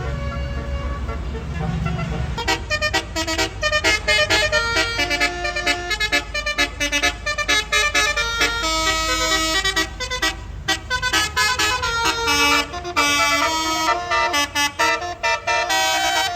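Tour bus's basuri telolet horn playing a rapid melody of short, multi-tone toots, starting about two seconds in. A bus engine rumbles underneath until about ten seconds in.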